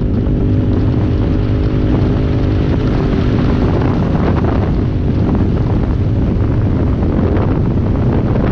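UTV engine running at speed over a sandy dirt track, mixed with heavy wind rumble on the microphone. A steady engine tone stands out during the first few seconds, then sinks back into the rumble.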